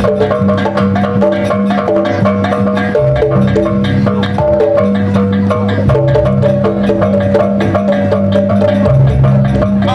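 Jaranan music from a traditional Javanese percussion ensemble: fast, steady drum strokes and tuned percussion over a sustained low drone, with a melody line moving in steps.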